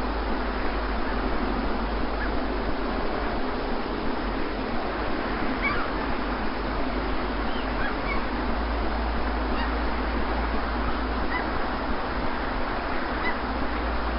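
Steady sea-surf noise with a few faint, short bird calls scattered through it, over a low steady drone.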